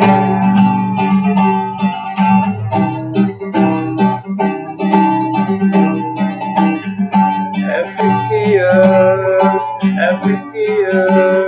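Acoustic guitar strummed in a steady rhythm, playing a song's chords between sung lines.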